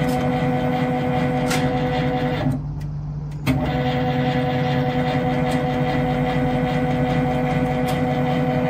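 SHM-D motor drive of an on-load tap changer running as it steps the transformer from tap to tap: a steady hum with a whine. It stops about two and a half seconds in and starts again with a click about a second later for the next tap change.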